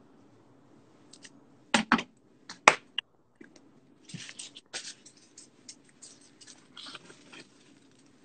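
Kitchen knife on a cutting board as carrots are cut: a few sharp knocks about two seconds in, then scattered lighter clicks and short scraping sounds.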